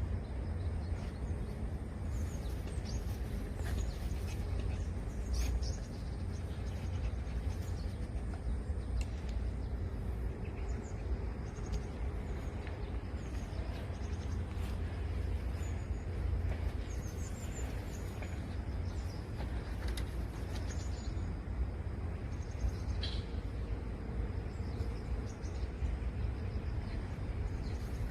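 Outdoor ambience: a steady low rumble with scattered short, high bird chirps now and then.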